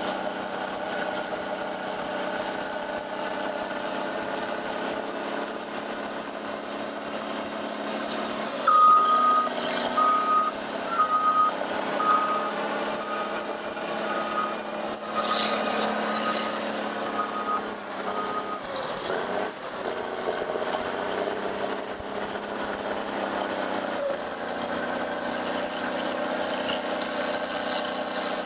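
Diesel engines of heavy earthmoving machines running steadily. About nine seconds in, a reversing alarm starts beeping at one pitch, about once a second, for roughly ten seconds as a machine backs up.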